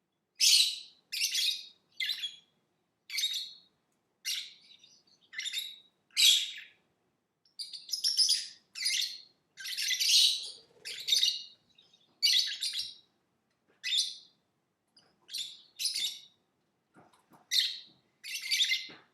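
Lovebird chirping: a run of short, high-pitched chirps, roughly one a second and sometimes in quick pairs.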